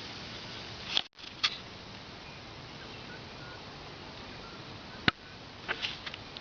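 A few sharp clicks and taps over a steady hiss: one about a second in, another half a second later, a single one about five seconds in, and a quick cluster of three near the end.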